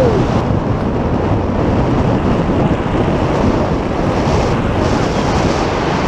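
Loud, steady wind rushing over the microphone of a tandem skydiver.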